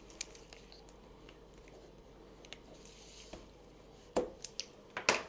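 Quiet room with scattered small clicks and taps of objects being handled, then a sharp click about four seconds in and a few more sharp clicks near the end.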